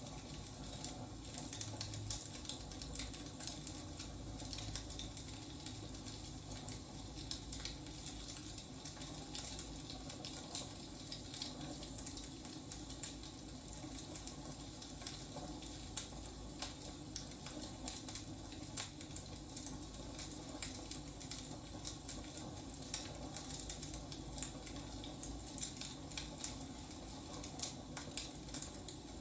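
Wood fire crackling steadily, with frequent small pops and snaps of burning firewood over a soft hiss.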